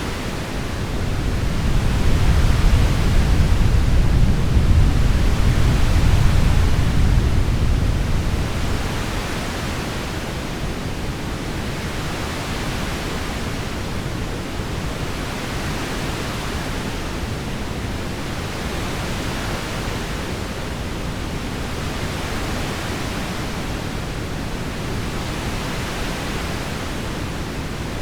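Heavy rain falling steadily, with a low rumble of soft thunder that swells about a second in and dies away after about eight seconds.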